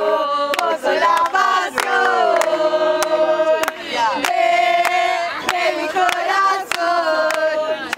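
A small group of football supporters singing a chant together, mostly women's voices, clapping in time.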